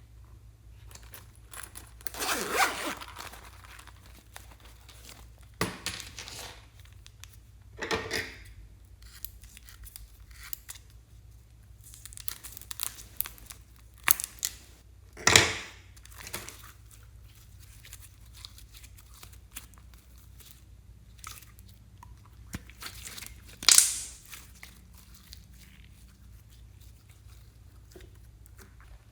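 Slime-making handling sounds: a scattered series of short tearing and crinkling noises, with two sharper, louder ones around the middle and later on.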